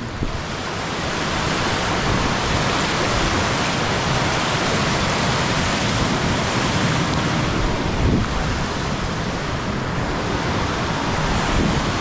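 White water of river rapids rushing over rock at the brink of a waterfall: a steady, even rush of water.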